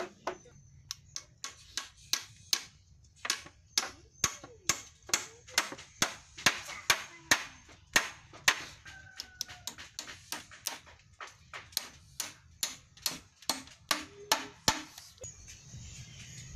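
Hammer driving nails into wood: a steady run of sharp blows, about two to three a second, some louder than others. The blows stop near the end, and a steady hiss begins.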